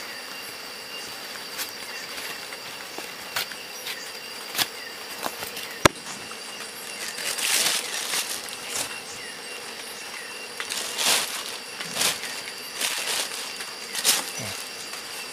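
Insects trilling steadily at a high pitch, with scattered clicks, a sharp tap about six seconds in, and several short bursts of rustling in the second half.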